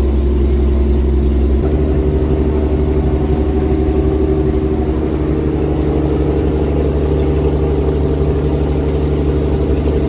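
The specially built laver-harvesting boat's engine running under way, loud and steady, at a roar. Its tone shifts slightly about one and a half seconds in.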